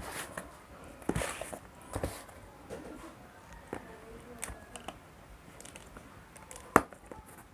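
Box cutter slicing the packing tape along a cardboard box's seam: soft scraping cuts with scattered small clicks and taps of handling, and one sharper click near the end.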